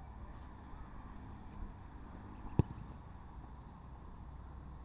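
Insects chirping in a high, pulsing trill over steady outdoor background noise, with one sharp thump of a football being kicked about two and a half seconds in.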